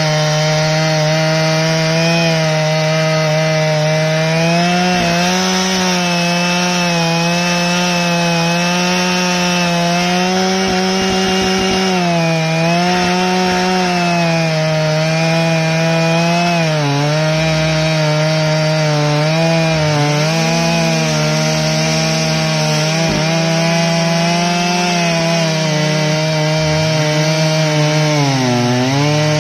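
Stihl MS 881 two-stroke chainsaw on a Granberg chainsaw mill, running at full throttle under load as it rips a slab lengthwise through a huge willow log with a 64-inch bar and ripping chain. The engine note sags slightly several times as the cut loads it, and near the end the pitch drops sharply for a moment before recovering.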